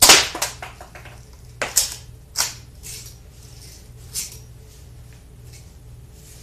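Daisy 117 Targeteer BB pistol being shot and handled: a sharp snap right at the start followed by a quick run of lighter clicks, two more snaps a couple of seconds in, and a fainter click about four seconds in.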